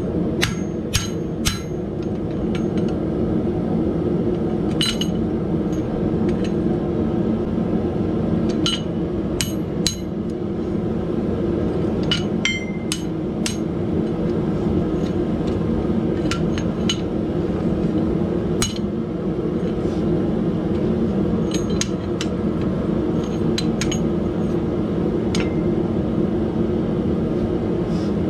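Hand hammer striking iron held in tongs on an anvil: irregular blows, often two or three close together, each with a short metallic ring. A steady low rumble runs underneath.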